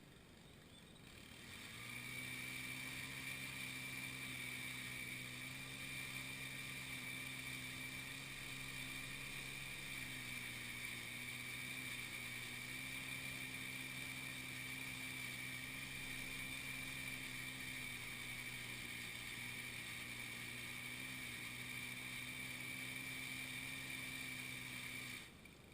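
An engine running at a constant speed, coming in about two seconds in and cutting off shortly before the end.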